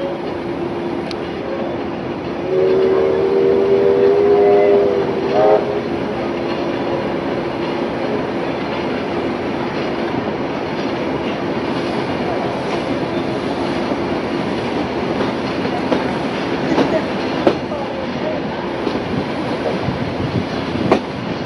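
Steam train running, heard from on board a carriage, with the rumble and clatter of wheels on the rails. A couple of seconds in, a steam locomotive's whistle sounds for about three seconds, several notes at once, loud over the running noise.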